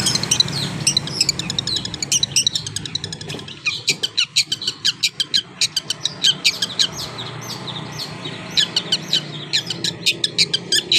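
Male long-tailed shrike (cendet) singing: a rapid, choppy run of short, sharp, high-pitched chattering notes, several a second.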